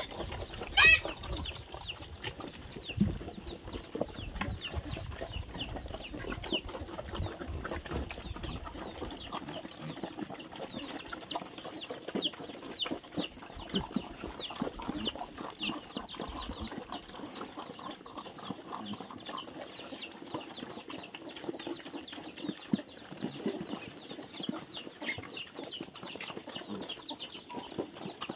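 Chickens clucking and chicks peeping in a steady run of short, high chirps, over the sound of a group of pigs eating at a trough. There is a brief loud squeal about a second in.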